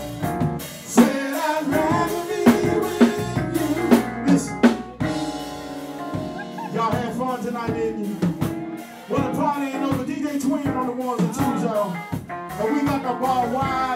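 Live band playing: a drum kit keeping a beat with snare and rimshot hits under an electric guitar line, and a man singing into a microphone over it through the second half.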